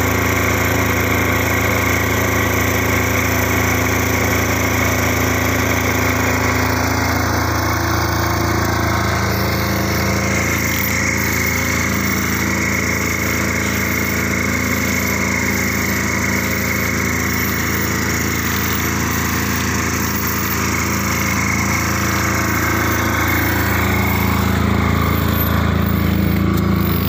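Small portable petrol generator running at a steady speed, a constant engine drone with a thin high whine above it.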